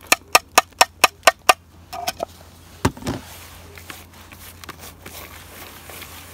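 A quick, even run of about eight sharp plastic clicks, roughly four a second, from a handheld plastic bait grinder as crushed bait is emptied out of it. A low thump follows about three seconds in. After that comes the soft rustle of a hand mixing dry groundbait in a plastic bucket.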